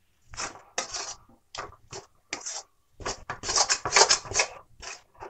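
Metal spatula scraping and stirring a crumbly semolina mixture around a kadhai as its water cooks off. The scrapes come irregularly, a few single strokes at first, then a quicker, louder run of them about three seconds in.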